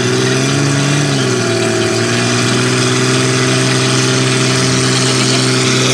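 Jeep Cherokee's engine held at high revs while a rear tyre spins in a burnout. The pitch rises and wavers in the first second, then holds steady.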